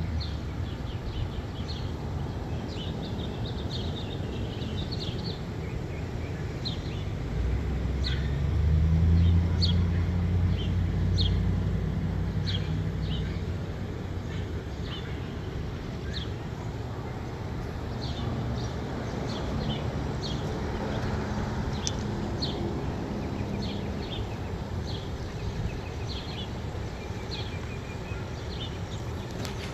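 Small birds chirping in short, repeated notes over a steady low rumble of street traffic, with a vehicle passing louder about eight to twelve seconds in.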